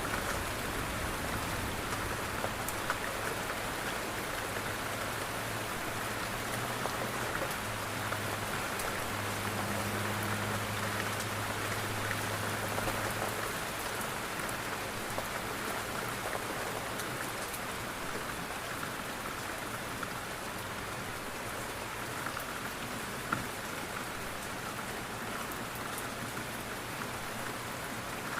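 Steady rain falling on a window, an even hiss with scattered small drop ticks. A low hum sits under it for the first half and stops about halfway through.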